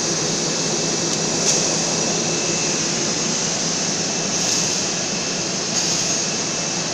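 Steady rushing noise of industrial machinery, with a faint steady high whine and a few light ticks.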